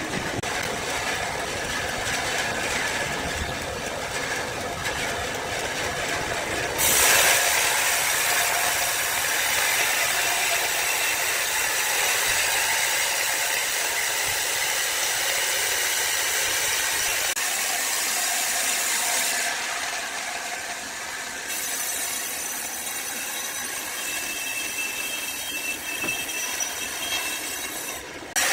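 Woodworking machinery running and cutting wood, a steady noisy machine sound that changes abruptly about seven seconds in and again a couple of times later.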